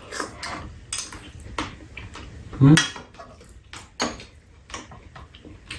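Metal spoons clinking and scraping against bowls and a pot during a meal, in scattered short clicks. A brief voice sound is heard once a little before the middle.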